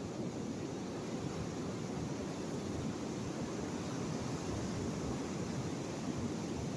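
Sea surf: a steady rushing noise, heaviest in the low range, with no separate wave crashes standing out.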